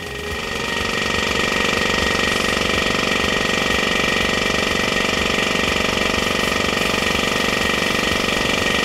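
Piston air compressor running steadily, with a dense mechanical clatter and a steady high tone. It turns clearly louder about a second in and then holds, as the compressor is heard without its sound-insulating enclosure.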